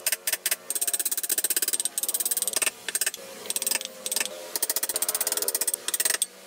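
Steel hand chisel scraping and paring wood, a fast chattering rasp in runs broken by short pauses.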